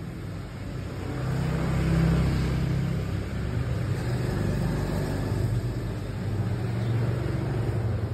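A steady low rumble, like a motor vehicle's engine or road traffic, that swells about a second in and then holds.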